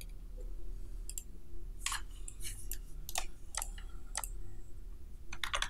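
Computer mouse clicks: single clicks spread out, then a quick run of three near the end, over a faint steady hum.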